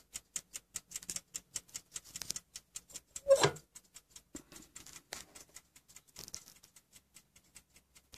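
The balance escapement of a French carriage clock movement ticking quickly and evenly, about five ticks a second. About three seconds in there is one brief louder knock.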